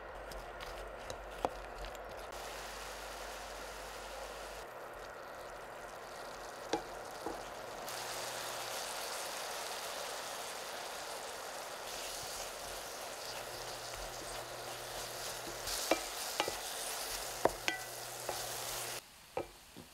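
Diced apples sizzling in butter, sugar and water as the compote cooks down in a pot, the liquid nearly boiled off. A wooden spatula stirs and knocks against the pot several times, mostly near the end.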